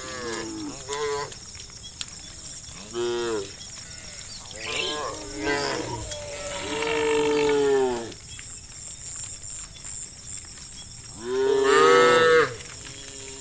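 Cows mooing: several calls, short ones first, then longer drawn-out moos. The longest and loudest comes about eleven seconds in.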